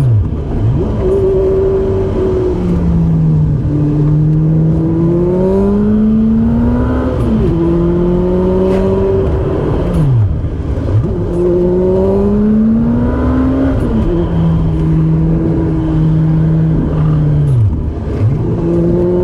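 Car engine running under way, its pitch climbing slowly and then dropping sharply several times as it revs up and shifts, over steady road noise.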